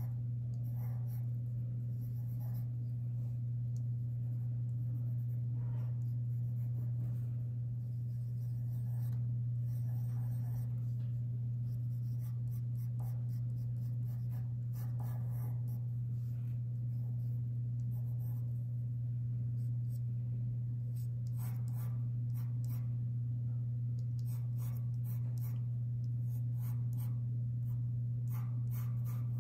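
Staedtler Mars Lumograph black graphite pencil scratching on paper in many short sketching strokes, over a steady low hum.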